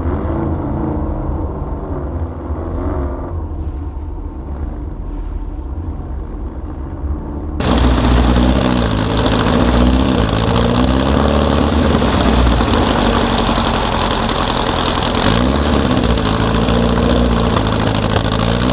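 Air-cooled Volkswagen flat-four engine running under way, its pitch rising and falling as it revs up and down. About seven and a half seconds in a loud, steady rushing noise suddenly joins it and stays.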